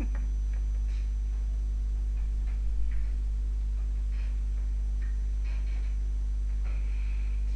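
Steady electrical mains hum, a low drone with a stack of overtones, and a few faint clicks about three seconds in.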